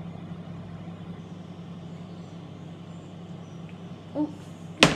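A steady low hum, then near the end one sharp knock as a glass olive oil bottle is set down on a hard kitchen surface.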